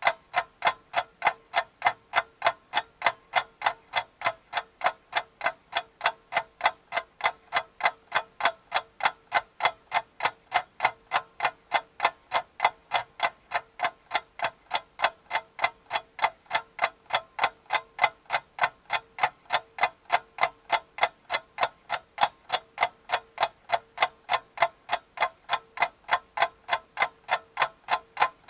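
Even, fast ticking like a clock, about three ticks a second, with a faint steady tone beneath it.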